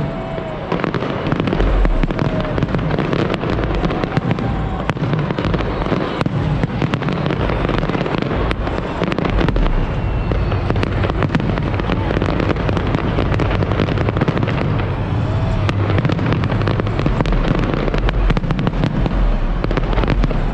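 Fireworks display going off without a break: a dense, rapid run of bangs and crackles over a steady low rumble.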